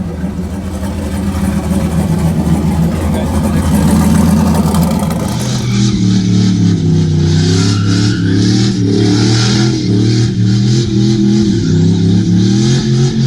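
GM pickup truck engine idling steadily. About six seconds in, the sound cuts to a different recording with pitched tones wavering up and down.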